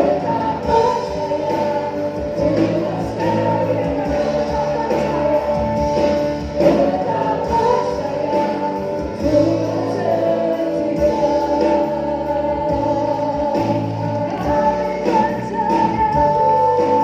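Choir singing an Indonesian gospel worship song, with long held notes.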